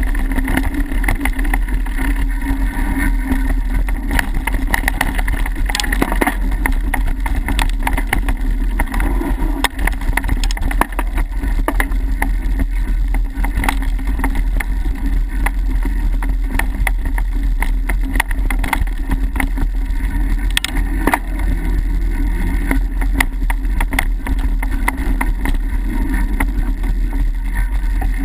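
Mountain bike riding fast over a dirt singletrack: a steady rumble of wind and tyres on the microphone, with frequent sharp rattles and clicks as the bike jolts over bumps.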